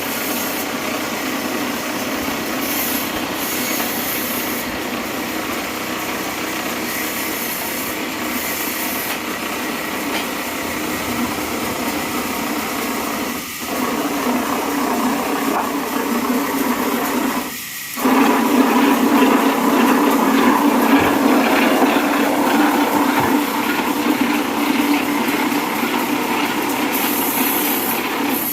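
Sawmill band saw running and cutting through timber: a steady, loud machine sound with a low hum, breaking off briefly twice and coming back a little louder after the second break.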